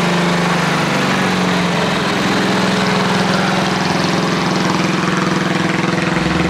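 An engine running steadily and loudly at a constant speed, with a slight change in pitch about two seconds in.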